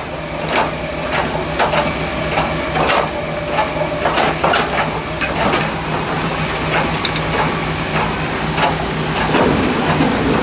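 Krafter RD 600 log debarking machine running with a steady hum, with irregular cracks and knocks as bark is stripped from a birch log.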